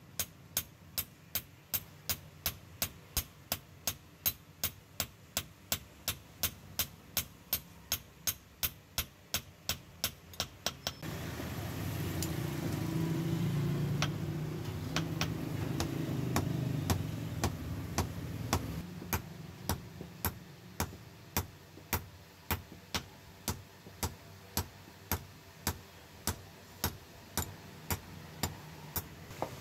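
Hand hammer striking a steel knife blade on a steel anvil block in a steady rhythm of about two sharp metallic blows a second. In the middle a low rumble swells for several seconds while the blows come more sparsely, then the even hammering resumes.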